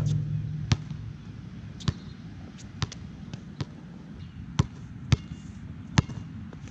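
Jordan Hyper Grip 4P basketball bouncing on a court: about seven sharp, separate bounces, roughly one a second and irregularly spaced. A brief low rumble opens it.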